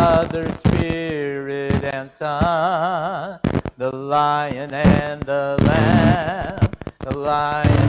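A man's voice singing a hymn, holding long notes with vibrato and pausing briefly between phrases.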